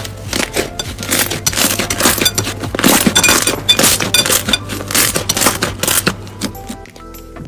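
Crunchy slime being squeezed and pressed by hand, giving dense crackling and popping that thins out about six and a half seconds in. Background music plays underneath.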